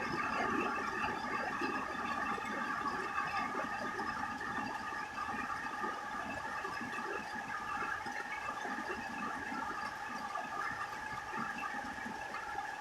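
Steady rain falling on a roof: a dense, even patter of drops, with a faint steady high-pitched whine of several tones underneath.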